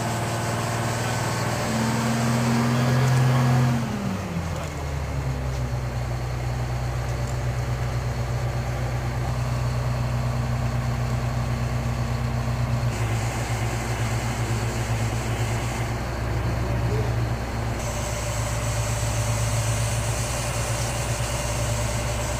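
Diesel engine of a mobile crane running steadily during a lift. About three and a half seconds in, it drops from higher revs back to idle.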